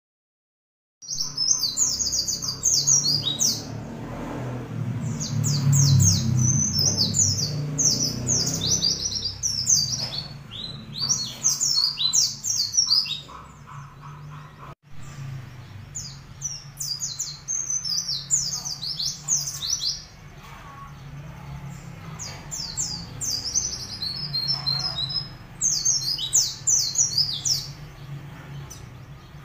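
A caged white-eye (pleci) singing rapid, high twittering phrases in bursts of a second or two, starting about a second in. A low steady hum runs underneath.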